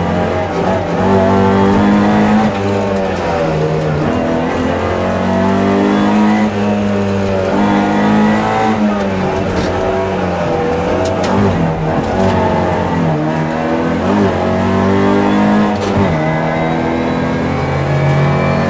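Opel Kadett GT/E rally car's four-cylinder engine heard from inside the cabin, revving hard. The pitch climbs and drops back again and again as the driver shifts up and down through the gears, with a few sharp knocks along the way.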